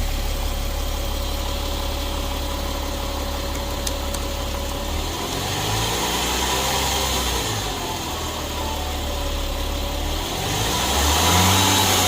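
Volkswagen Touareg engine idling, then revved up and let back down twice, about halfway through and again near the end.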